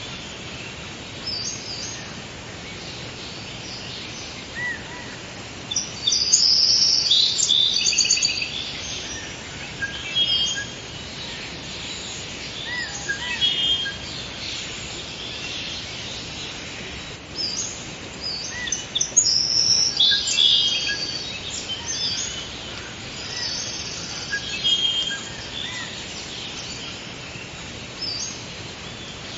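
Forest ambience: several birds singing and calling with short chirps and trills over a steady background hiss, the loudest bursts of song about six seconds in and again around twenty seconds.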